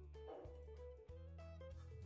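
Quiet background music: a melody that moves from note to note over held low notes.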